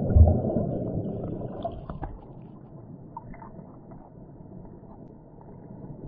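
Stream water churning and bubbling, heard underwater and muffled: loud for the first two seconds, then settling to a low murmur with a few faint clicks.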